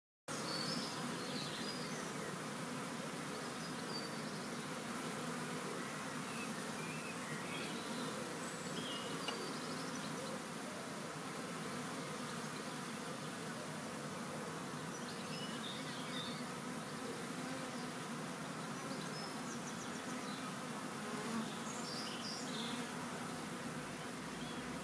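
A large swarm of honeybees buzzing: a dense, steady hum of many bees together.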